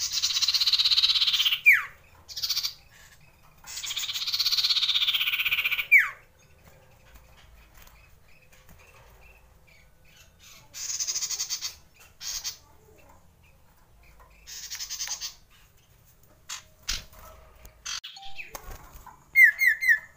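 Common iora singing: two long rolling trills, each sliding down in pitch and ending in a sharp downward note, then shorter, quieter bursts of song, and a quick run of three notes near the end.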